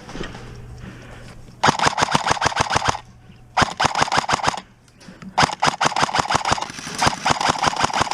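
Airsoft electric gun, the player's AK5C replica, firing full-auto in three bursts: a short one a couple of seconds in, a shorter one, then a longer one of almost three seconds. Each burst is a fast, even run of sharp shots over the whir of the gearbox.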